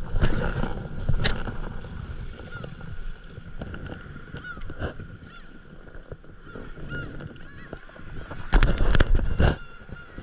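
Gulls calling in short, repeated cries over the wash of a paddle in shallow water, with a few loud thumps about eight and a half seconds in.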